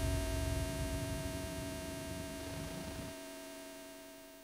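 Electronic drone: a dense buzzing hum of many steady tones over a rough low rumble. The rumble cuts off abruptly about three seconds in, and the hum then fades out.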